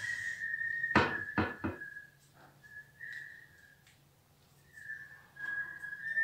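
A thin, high whistling tone held at one steady pitch, breaking off and coming back several times, with three sharp knocks between about one and two seconds in.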